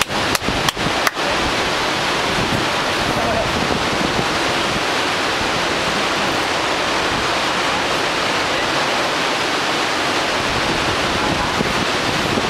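A steady, even rushing noise, wind or water in the canyon, with a few sharp clicks in the first second.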